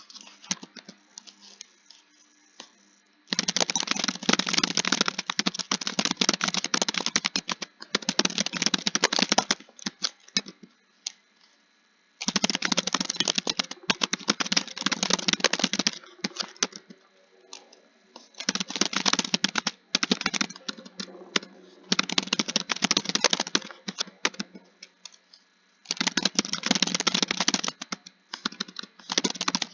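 Fast typing on a computer keyboard: dense runs of keystrokes lasting two to four seconds each, broken by short pauses, about six runs in all.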